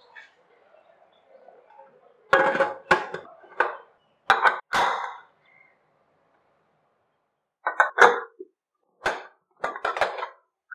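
Prestige Svachh pressure cooker lid clanking against the metal pot as it is put on and taken off, in two bursts of sharp metallic clinks a few seconds apart.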